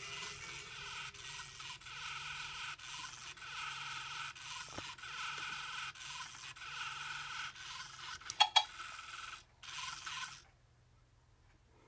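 Small gear motor inside an I-Cat robot cat toy, whirring and grinding in short runs as it moves. Two sharp clicks about eight and a half seconds in, a last short run, then it stops.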